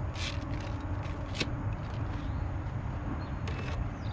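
A rod, reel and gear being handled on a bass boat's deck: a few short rustles and clicks over a steady low rumble.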